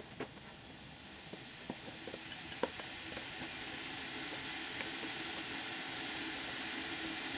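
Metal spoon stirring dry flour mix in a glass bowl, with light, scattered clinks of the spoon against the glass. A faint steady hum and hiss sit underneath.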